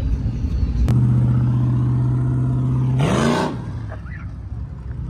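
A motor kicks on with a click about a second in and runs at a steady pitch for about two seconds. Its pitch then rises briefly under a loud burst of hiss, and the sound falls away.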